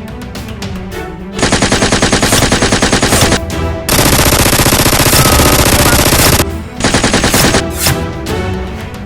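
Rapid automatic gunfire in three bursts over background music: a two-second burst about a second and a half in, a longer and louder one in the middle, and a short one near the end. The shots come about a dozen or more a second.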